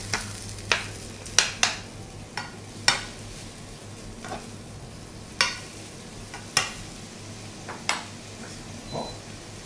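Metal spoon scraping and tapping against a nonstick frying pan as sliced red onions are stirred, over the faint sizzle of the onions starting to fry in olive oil. The scrapes come irregularly, about once or twice a second at first and more sparsely later.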